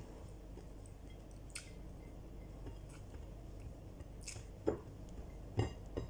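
Faint chewing and small mouth sounds of a person eating fried rice and corned beef by hand, with a few short clicks, the loudest about four and a half and five and a half seconds in.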